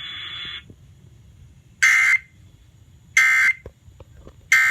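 Emergency Alert System end-of-message data tones: three short, harsh digital bursts about a second and a half apart, marking the end of the alert. A steady tone at the start cuts off about half a second in.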